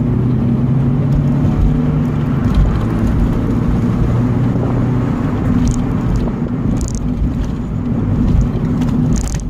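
Mk 3.5 VW Golf Cabriolet driving along at low speed: a steady engine hum with tyre and road noise underneath. The engine note eases about halfway through, and a few brief high-pitched ticks come near the end.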